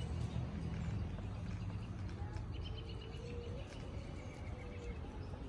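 Outdoor ambience: a low steady rumble, with a bird trilling faintly about two and a half seconds in.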